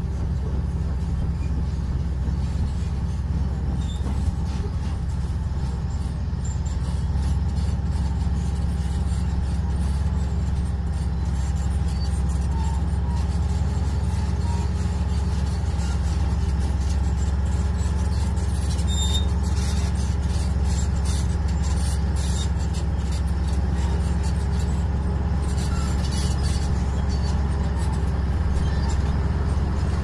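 A bulldozer's diesel engine running steadily nearby, a constant low drone. From about six seconds in there is light scratching as dirt is brushed across the metal detector's coil by hand.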